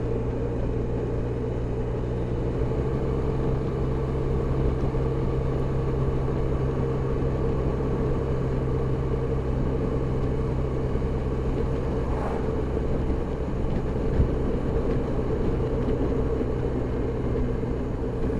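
Touring scooter's engine running at a steady cruising speed, mixed with wind and road noise, with no rise or fall in pitch.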